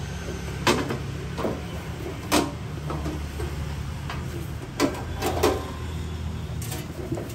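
A lockable toolbox being handled: scattered short clicks and knocks, about eight in seven seconds.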